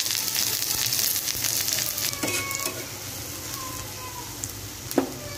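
Sliced onions sizzling in hot oil in an iron karahi, the sizzle loudest at first and easing off, while a steel spatula stirs them and clicks against the pan, with one sharp knock about five seconds in.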